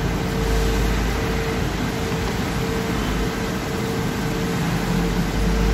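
Steady fan-like machine hum and hiss, with a low rumble and one held mid-pitched tone.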